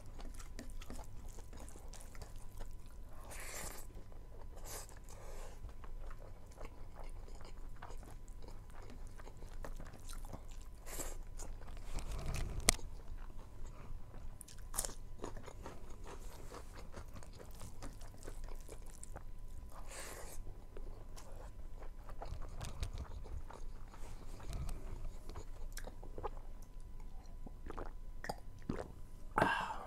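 Close-miked eating sounds from a person chewing rice, meat and crunchy raw cucumber: steady chewing and crunching broken by scattered sharp clicks and smacks.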